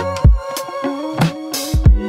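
Background music with a beat: held keyboard or synth notes over a bass line, with a couple of heavy kick-drum hits.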